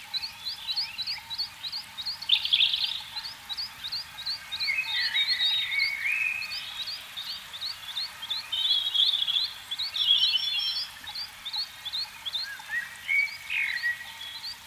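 Frogs calling: a steady run of short, high chirps about three a second, with other warbling, gliding calls rising and falling in and out over it.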